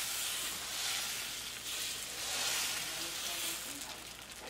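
Semolina baghrir batter sizzling on a hot electric griddle as it is poured and spread into a round. The hiss rises and falls as the batter spreads, easing off a little near the end.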